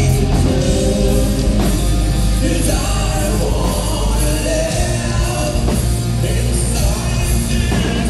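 Loud live heavy rock: a full band playing, with a male lead singer singing over it.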